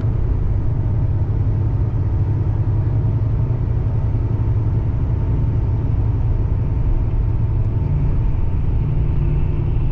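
Tour coach driving, heard from inside the passenger cabin: a steady low engine and road rumble.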